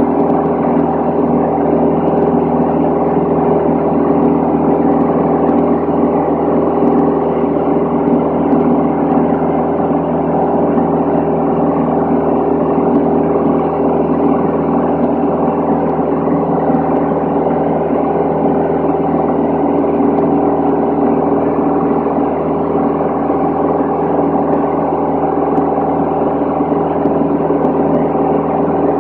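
Van's RV-10 light aircraft's piston engine and propeller droning steadily in cruise flight, heard inside the cabin.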